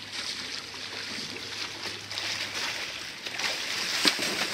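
River water rushing and lapping close by, with splashes from a freestyle kayak and its paddle working the eddy line building near the end, and a sharp splash about four seconds in.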